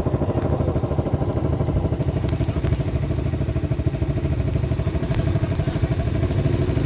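A small engine idling with a fast, even pulsing beat.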